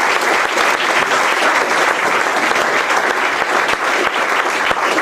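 Audience applauding steadily, many hands clapping in a dense patter.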